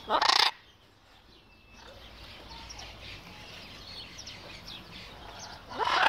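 Blue-and-yellow macaw giving two short, harsh squawks, one at the start and one near the end, with faint chirping in between.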